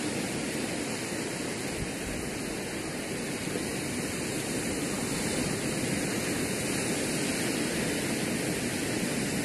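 Steady rushing noise of sea surf, an even hiss with no breaks.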